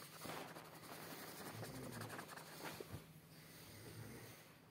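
Faint scratching of a coloring pen on paper as a patch is filled in with green, stopping about three seconds in.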